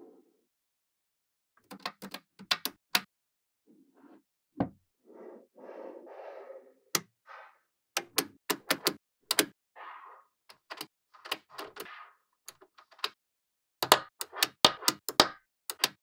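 Small neodymium magnetic balls snapping and clicking together as they are fitted onto a model, in irregular clusters of sharp clicks. Between the clusters come a few softer, longer rustling sounds.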